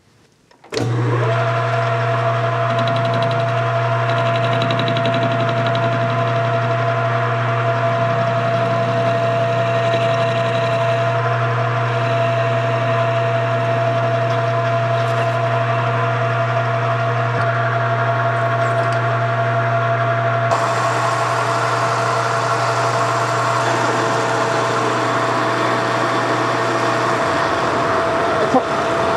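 Metal lathe running and turning a metal workpiece, the cutting tool taking chips: a steady motor hum with a whine. The sound changes abruptly about two-thirds of the way through, and the low hum drops out near the end.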